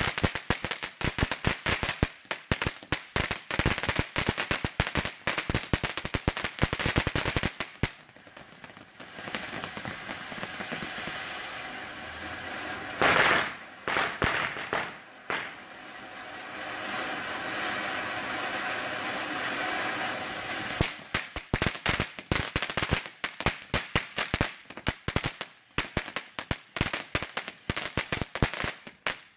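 TNT Rocketman consumer ground fountain burning: rapid crackling for the first several seconds, then a steady hissing spray of sparks with one brief louder surge in the middle, then dense crackling again toward the end.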